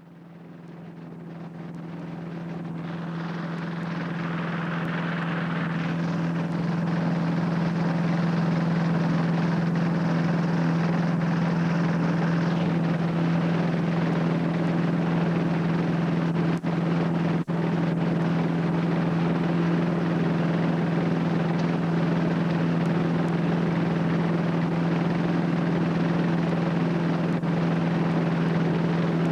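Air Creation trike's Rotax 582 two-stroke twin engine and pusher propeller running at a steady speed with the trike on the ground. The drone swells up over the first several seconds, then holds an even pitch, with two brief dips a little past halfway.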